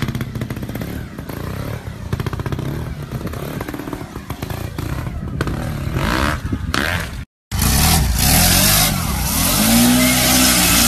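A trials motorcycle's engine running with quick throttle blips. After a brief gap about seven seconds in, a lifted quad bike's engine revs up with a rising pitch, louder and with wind noise.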